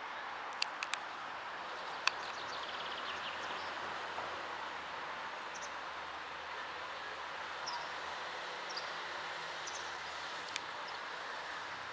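Outdoor ambience: a steady hiss with a few faint, short bird chirps and several sharp clicks, three in quick succession near the start.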